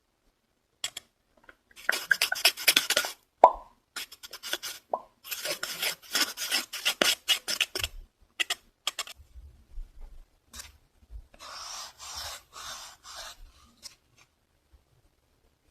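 Fast, aggressive scratching close to the microphone in two long bursts of rapid strokes, with two short pops between them. Near the end come a few clicks and a softer rubbing.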